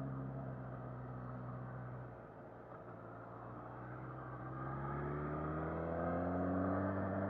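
2019 Suzuki Katana's inline-four engine running under way. It holds steady at first, eases off about two seconds in as the throttle closes, then pulls again with a steadily rising pitch as the bike accelerates.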